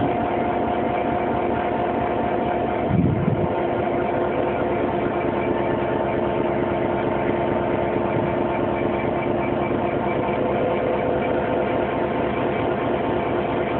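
Class 66 diesel locomotive's EMD two-stroke V12 engine running steadily as the locomotive passes close by, a drone with several held tones. About three seconds in there is a brief low rumble, and the engine note shifts.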